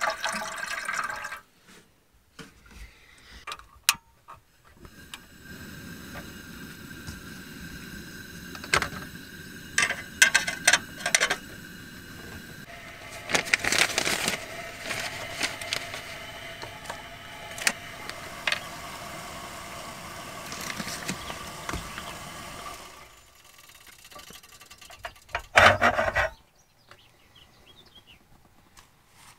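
Water glugging from a jerry can into a metal camping kettle, stopping about a second and a half in. Then the steady hiss of a small camping gas stove under the kettle, with scattered clicks and rustles as a paper coffee filter is handled, and a brief metal clatter near the end as the kettle is lifted.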